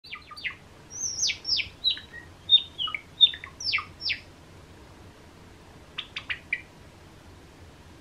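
Cream Java sparrow calling in its usual rhythm: a quick run of short chirps, each falling sharply in pitch, for about four seconds. After a pause comes a fast cluster of four short clicky notes.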